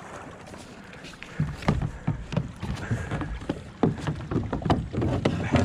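Irregular knocks and thumps on a plastic sit-on-top kayak as the paddler climbs out onto a rock ledge in shallow water, starting about a second and a half in.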